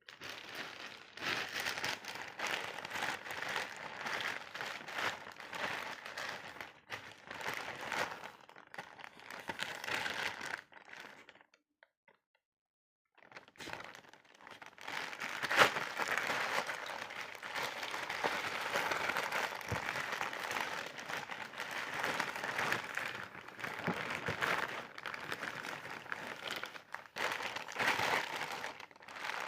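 Packaging being handled and opened: irregular crinkling and rustling with scattered sharp clicks and knocks. It stops for over a second about twelve seconds in, then goes on.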